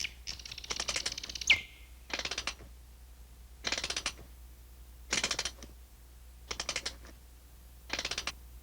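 A bird trilling in short bursts of rapid, clicking notes, six bursts about a second and a half apart.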